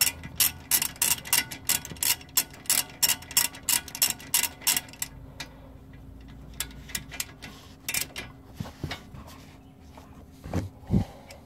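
Socket ratchet clicking in a steady run, about three to four clicks a second, as a brake caliper bolt is tightened. After about five seconds the clicks thin out to a few scattered ones, and a couple of dull knocks come near the end.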